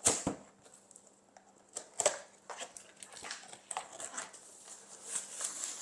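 Cookware being handled: a sharp knock at the start and another about two seconds in, then scattered light clicks and rustles of a pot, its lid and packaging.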